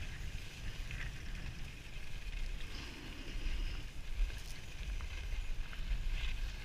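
Wind buffeting the action-camera microphone as a skier moves downhill, a steady low rumble, with the hiss and scrape of skis sliding on packed snow.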